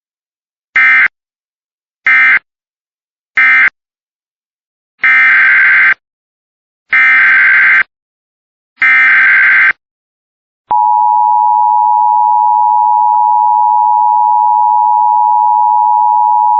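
Emergency Alert System signalling: three short buzzy SAME data bursts (the end-of-message code closing the previous alert), then three longer one-second SAME header bursts for the next alert. About eleven seconds in, the steady EAS attention tone starts and holds.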